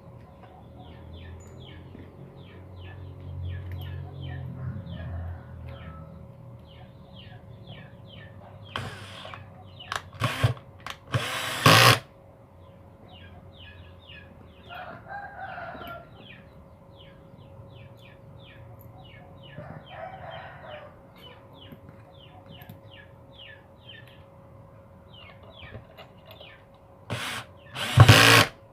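A power drill driving screws in short runs: a few quick bursts about a third of the way in and one more near the end. Chickens cluck and call in the background throughout.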